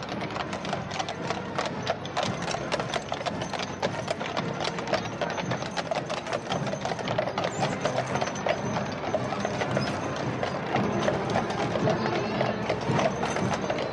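Horses' hooves clip-clopping on a hard road surface, many irregular strikes overlapping, over a crowd's murmur.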